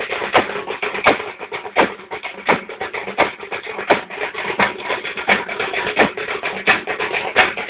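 Drums played in a driving rhythm, a heavy stroke about every 0.7 seconds with quicker strokes between, over a dense crowd din.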